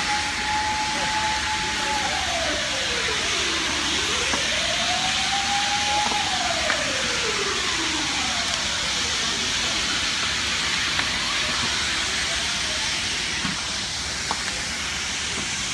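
An emergency vehicle siren wails through two slow rise-and-fall cycles and has faded out by about nine seconds in. Underneath it runs a steady, loud rushing hiss.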